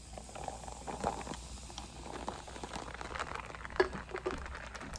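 Freshly poured soda fizzing in a glass, a dense crackle of popping bubbles. A single sharp click sounds just under four seconds in.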